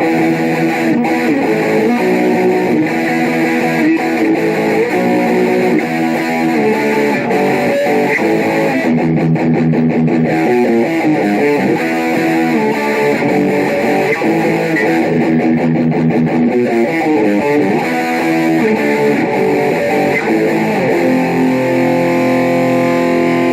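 Music led by guitar, with a busy melodic line of quick notes; it starts abruptly.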